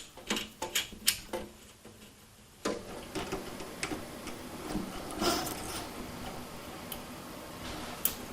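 Light clicks and ticks of small metal parts being handled and fitted by hand, a quick run of them at the start and scattered ones after.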